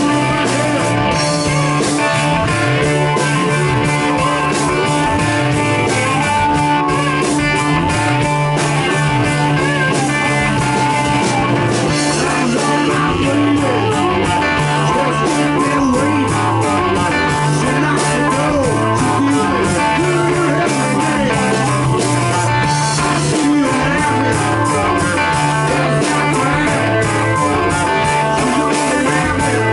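Blues rock band playing live and loud: electric guitar, bass guitar and drum kit, with the frontman playing harmonica cupped against a microphone.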